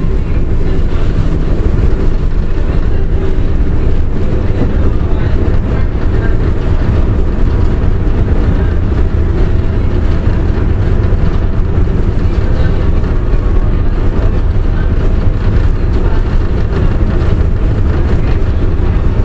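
Tatra T4YU tram running along the track, heard from inside the car: a steady, loud rumble with no breaks.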